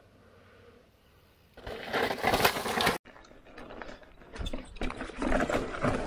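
A mountain bike riding down a rough dirt trail, its tyres rolling over dirt and roots and the bike clattering with uneven knocks and rattles. Before that, a loud rushing noise starts about a second and a half in and cuts off suddenly about halfway through.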